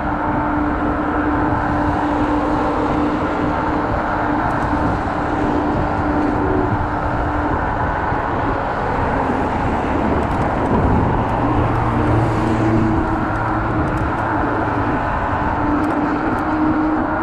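Kaabo Wolf Warrior electric scooter ride on city roads: steady wind and road rush on the helmet or body camera with a continuous hum. A second, lower hum joins about two-thirds of the way through, as from passing traffic.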